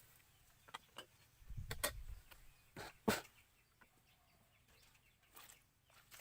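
Scattered light clicks and knocks, with a brief low rumble about a second and a half in and the sharpest knock about three seconds in.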